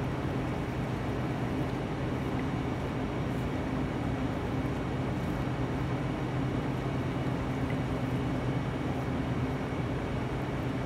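Steady machine drone with a low hum, even in level and without distinct knocks or clicks.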